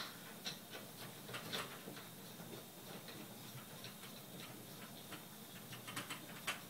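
Faint, irregular clicks and taps of a Buddipole rotating arm kit being handled and fitted onto the VersaTee at the top of the mast, with a few clicks close together near the end.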